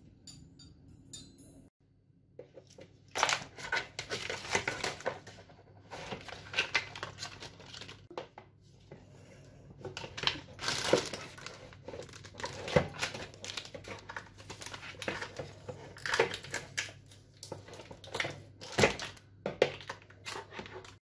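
Plastic packaging bags crinkling and rustling in irregular bursts as they are handled and unwrapped by hand.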